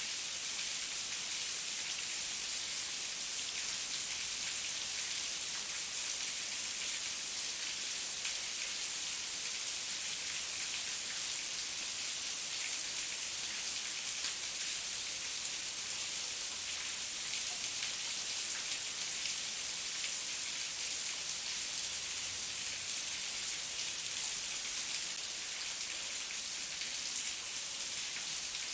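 Heavy rain falling steadily, a dense even hiss of drops hitting a surface.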